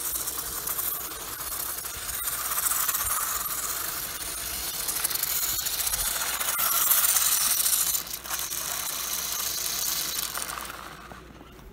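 RC buggy driving on ice: its motor and gears whirring with a hiss, swelling and easing with the throttle as it slides around, dying away near the end.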